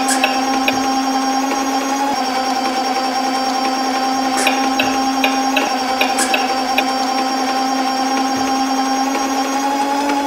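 Small electric motor and gearbox of a remote-control 6x6 toy army truck whining steadily as it crawls over rough dirt, the pitch shifting slightly a few times, with runs of quick ticks.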